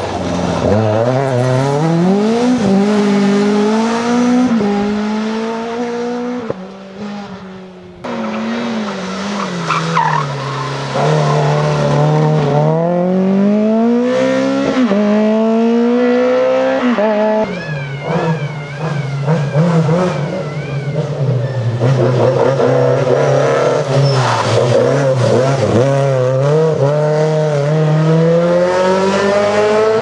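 Rally car engines at full throttle, one car after another: revs climb hard and drop sharply at each gear change or lift, then climb again. There is tyre squeal and skidding through the bends.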